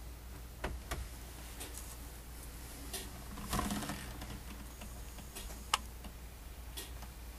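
Scattered light clicks and a short crackling rustle about halfway through, over a steady low hum.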